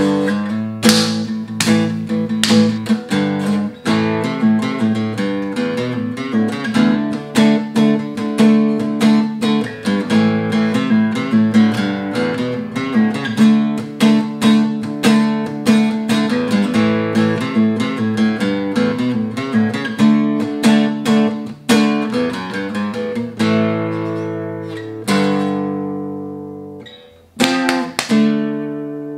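Solo acoustic guitar, a quick run of picked and strummed notes over a steady low note. Near the end a chord is left ringing and fades out, then a few more strums follow.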